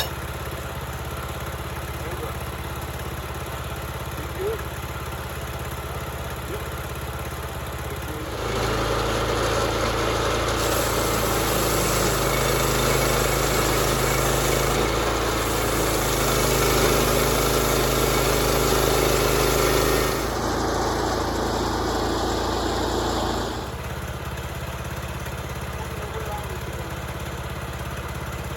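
An engine runs steadily, then gets louder and rougher for about fifteen seconds from about 8 seconds in, before settling back to its earlier level.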